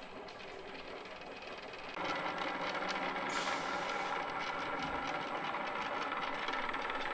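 Rod-blank machine running steadily, turning carbon-fibre rod blanks between its rollers with a mechanical whir that gets louder about two seconds in.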